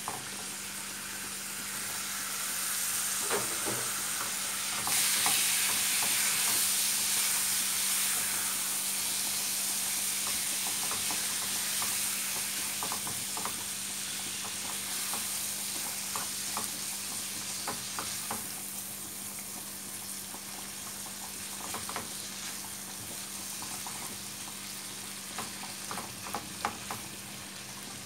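Raw chicken pieces sizzling as they fry with onions in a pan, stirred and scraped with a spatula. The sizzle swells about five seconds in and eases after the middle, with spatula clicks and scrapes throughout.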